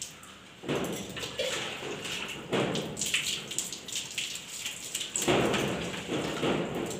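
Mugfuls of water poured over long, lathered hair and splashing onto a concrete floor, in three pours starting about a second, two and a half and five seconds in.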